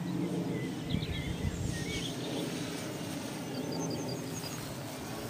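Wind rumbling on the microphone, with small birds chirping: a few short calls a second or two in, then a quick run of high, evenly repeated notes a little later.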